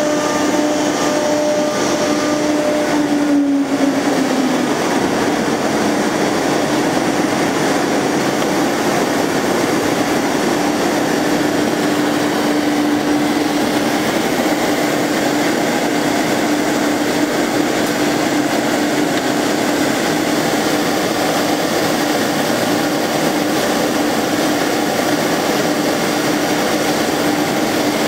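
Large CNC router machine running with a steady mechanical drone and a constant hum. About three and a half seconds in, the sound dips for a moment and a tone slides down in pitch, then the drone carries on unchanged.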